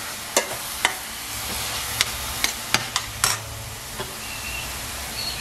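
Metal spoon stirring grated zucchini in a stainless steel pan, knocking and scraping against the pan in about eight sharp clinks over the first four seconds, over a steady light sizzle of the vegetables frying on high heat.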